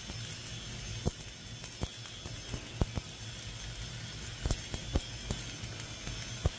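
Stick (SMAW) welding arc from an E7016 3.2 mm low-hydrogen electrode laying the second pass of a vertical fillet weld: a steady hiss with irregular sharp crackles and pops.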